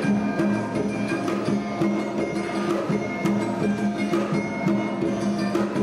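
Background music: a string of quick percussion strikes over a steady low drone, with higher held notes above.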